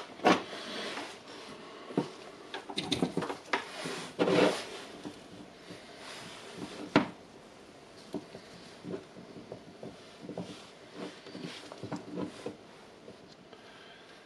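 Handling sounds from working on an opened cordless tool battery pack: irregular clicks, knocks and light rubbing as gloved fingers pull and wiggle its circuit board and tools are set down on the bench. The sharpest knocks come just after the start, in a cluster around three to four seconds in, and once about seven seconds in, with smaller ticks after.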